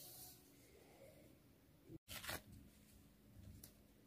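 Near silence: faint room tone, with a brief dead-silent gap at an edit cut about two seconds in, followed by a short faint rustle.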